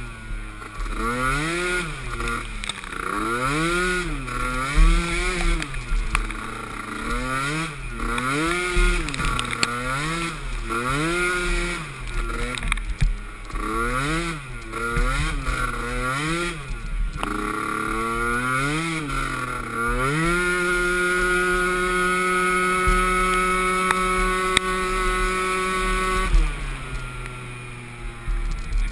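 Youth ATV engine revving up and falling back over and over as the throttle is worked through a race course, then held at steady high revs for about six seconds before backing off.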